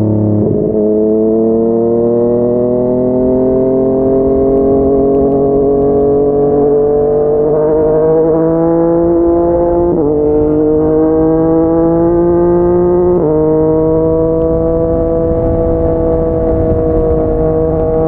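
Yamaha MT-09's three-cylinder engine through a Yoshimura R55 slip-on exhaust, accelerating through the gears. The pitch climbs steadily for about ten seconds, drops at an upshift, climbs again and drops at a second upshift about three seconds later, then holds nearly steady at cruising revs.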